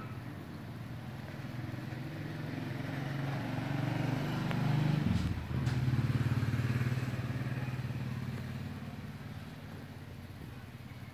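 A motor vehicle's engine running, growing louder toward the middle, with a brief break in its hum about five seconds in, then slowly fading away.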